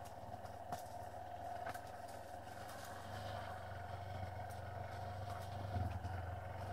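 Yamaha Serow 250's single-cylinder engine running steadily in first gear on a downhill stretch, growing a little louder about halfway through, with a few clicks and knocks from the bike over rough ground.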